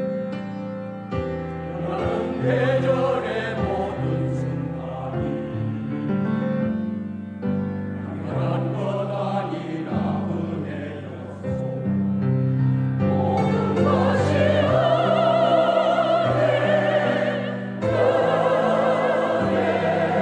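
Church choir singing a sacred song in harmony. The voices swell louder about two-thirds of the way through, with wavering held notes.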